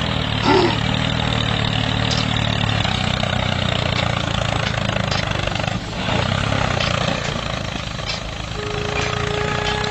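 The motor of a homemade mini tractor running steadily, with a low hum under a dense whirring.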